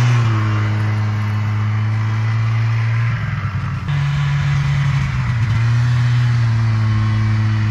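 Snowmobile engine running at a steady pitch, stepping up briefly about four seconds in and then settling back.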